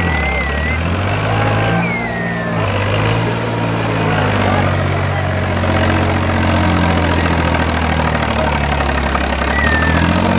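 Preet 955 tractor's diesel engine working hard through a wheelie stunt, its pitch shifting up and down as the rear wheels dig and spin in loose dirt.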